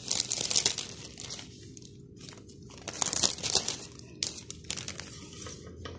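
Clear 8x12 plastic bag crinkling and rustling as it is handled and pulled open. The crackle comes in irregular spells, loudest near the start and again about three seconds in.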